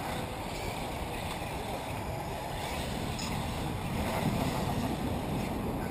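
Steady wind rumble on the microphone, mixed with the distant running of radio-controlled off-road cars racing on a dirt track.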